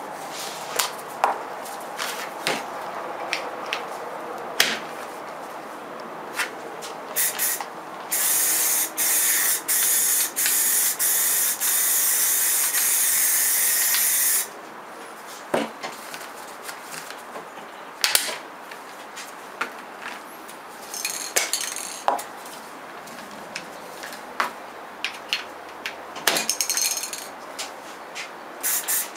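Aerosol spray paint can shaken with clicking knocks, then sprayed through a pistol-grip trigger adapter. The spray is a loud hiss from about eight seconds in, held for roughly six seconds with a few short breaks. After that come more clicks and knocks of the can and adapter being handled, and another short spray near the end.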